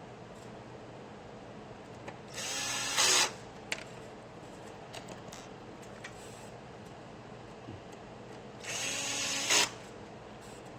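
Small electric screwdriver driving the screws that hold a replacement network board in an HP M401 laser printer: two short runs of about a second each, with light clicks of handling between them.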